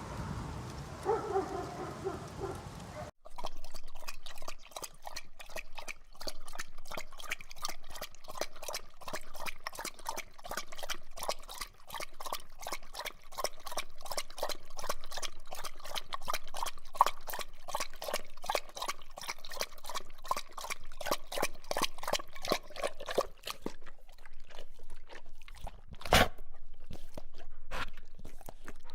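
Dog sound effects: a few seconds of pitched dog sound, then, after an abrupt cut, a long run of short, evenly spaced sounds at about four a second that stops about 23 seconds in. A single loud, sharp sound comes about 26 seconds in.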